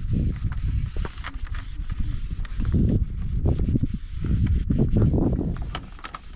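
Hands scraping and rubbing at something in a shallow plastic tray, with scattered small clicks, over a low uneven rumble that swells and fades.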